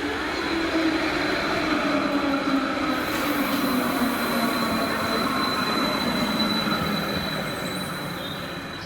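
Electric rail vehicle passing close by, getting louder then fading, its motor whine sliding down in pitch over a steady high wheel squeal.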